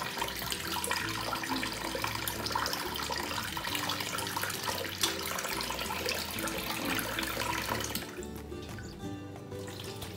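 Kitchen tap running into a stainless steel bowl as glutinous rice is rinsed and swished by hand, the running water stopping about eight seconds in. Background music with steady low notes plays underneath.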